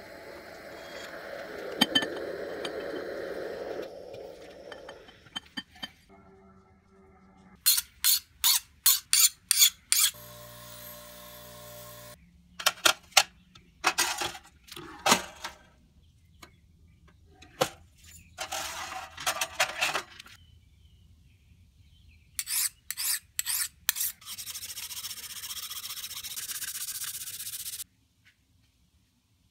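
Propane torch flame running steadily into a small firebrick forge, heating a knife blade. After it stops, there are several bursts of sharp metallic clinks and clatters, a brief buzzing hum about ten seconds in, and a steady hiss for a few seconds near the end.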